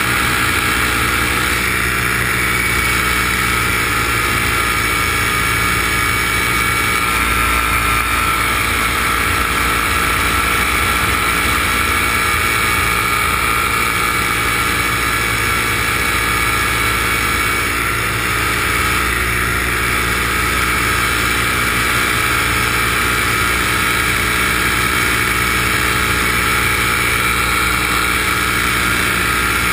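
Engine and propeller of a light aircraft running steadily in flight, heard from on board: a constant hum with steady high tones over it.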